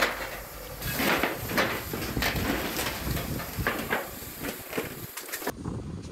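Irregular crackles, clicks and clatters over a steady outdoor hiss, with no voices. The sound changes abruptly about five and a half seconds in, where the picture cuts to another shot.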